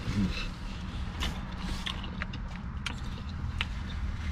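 Scattered sharp crackling clicks from handling a clear plastic clamshell fruit container and paper napkins, over the steady low hum of a car. A brief 'mm' comes right at the start.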